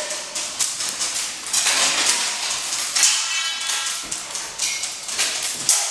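Airsoft gunfire: a dense, irregular run of sharp snaps and clicks as BBs are fired and clatter off hard walls and floors.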